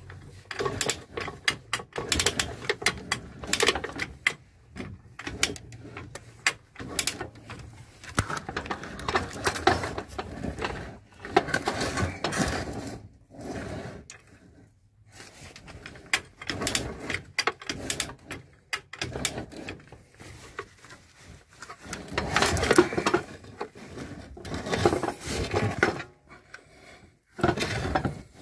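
Irregular clanks, knocks and scrapes of metal parts and hand tools being handled in a workshop, with short pauses between bursts.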